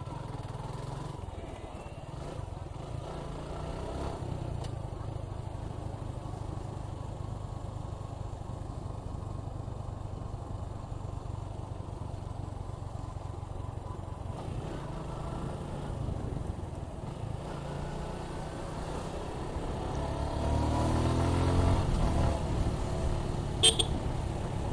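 Suzuki Gixxer 155's single-cylinder engine running steadily under the rider, with road noise. About twenty seconds in it gets louder and climbs in pitch as the bike accelerates, and one brief sharp sound comes near the end.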